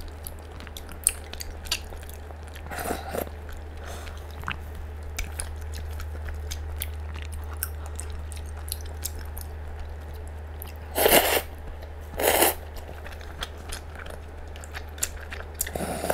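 Close-miked eating sounds: chewing of udon noodles and tapioca pearls with many small wet mouth clicks, and two loud slurps of noodles about eleven and twelve seconds in. A steady low hum lies underneath.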